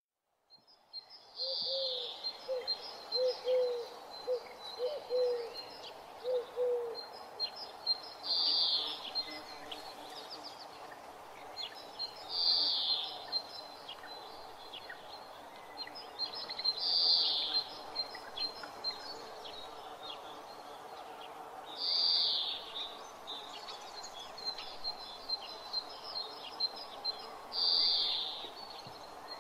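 Birds calling in open parkland: a loud, high call repeats about every five seconds over a steady high chattering, and a low hooting note sounds about eight times in the first seven seconds.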